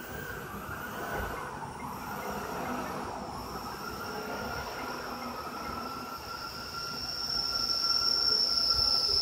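High-pitched motor whine from the FS1630ATC CNC router's spindle head as it moves away from the tool rack along the gantry after a tool change. The whine starts suddenly, swoops up and down in pitch a few times in the first three seconds, then holds steady and grows louder near the end.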